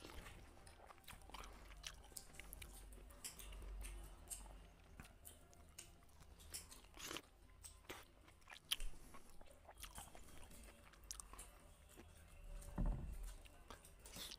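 A person chewing mouthfuls of rice and curry close to the microphone, with many small mouth clicks.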